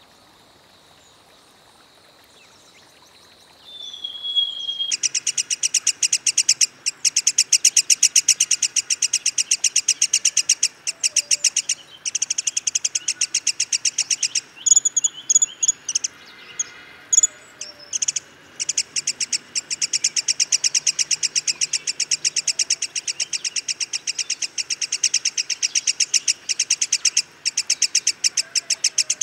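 Black-headed sibia singing: a long, fast run of high repeated notes that starts about five seconds in and goes on with only brief pauses. Before it comes a faint thin whistle and one short falling note.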